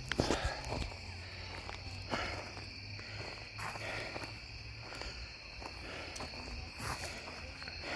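Footsteps crunching on playground wood chips, uneven and scattered, with a few heavier knocks in the first half-second. Behind them, a steady chorus of crickets keeps up a high, unbroken trill.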